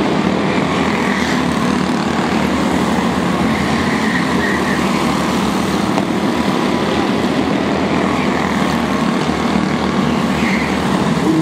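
A pack of quarter midget race cars with small Honda engines running hard around the track, a loud steady engine drone from several cars at once.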